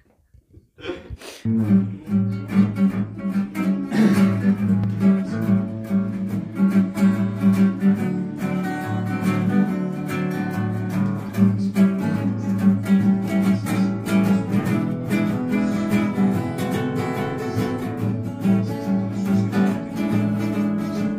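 Two acoustic guitars played together, strummed and picked, starting about a second and a half in.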